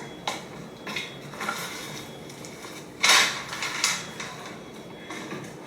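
Clattering and clinking of hard household objects being handled: a few short knocks, then a louder rattle about three seconds in.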